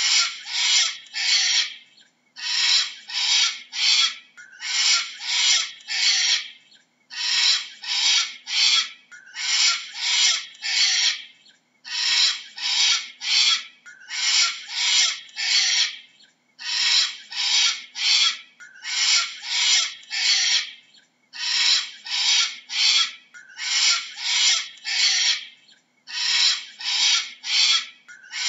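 Cockatoo screeching over and over in quick bursts of three or four calls, a burst about every two and a half seconds with short pauses between.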